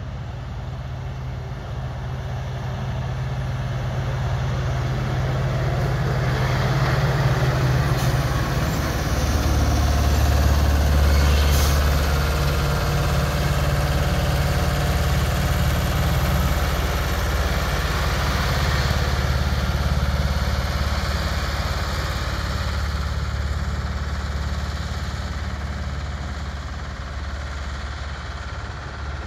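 Diesel engine of a hi-rail water tank truck running along the railroad track: it grows louder as the truck approaches, is loudest as it passes close by, then slowly fades as it moves away.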